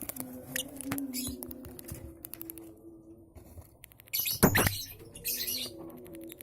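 Newly hatched lovebird chicks chirping, in quick trains of thin high squeaks, with a loud knock about four and a half seconds in.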